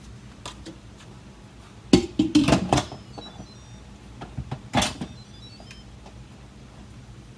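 Instant Pot's metal-and-plastic lid being set on the pot and twisted into place: a quick run of clanks and clicks about two seconds in, then another clatter near five seconds.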